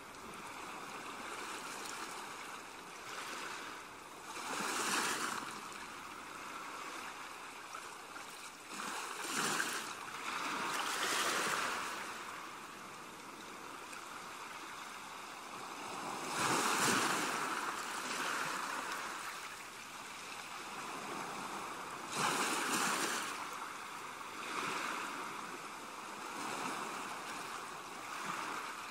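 Ocean waves washing in over a steady hiss, a swell building and falling back every few seconds.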